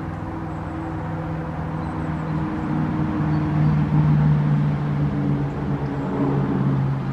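A nearby engine running with a steady drone that shifts slightly in pitch, growing louder toward the middle and staying loud, loud enough that the gardener waits for it to pass before talking.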